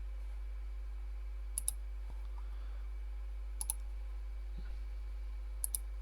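A button clicked three times, about two seconds apart, each press and release heard as a quick double click, pulsing the input of a PLC counter. A steady low electrical hum runs underneath.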